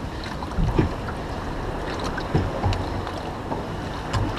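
Steady wind rumble on the microphone and water noise aboard a small boat on open water, with a few light knocks.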